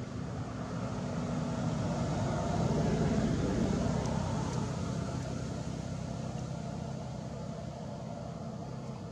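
A motor engine running, with a low steady hum that swells to its loudest about three seconds in and then slowly fades.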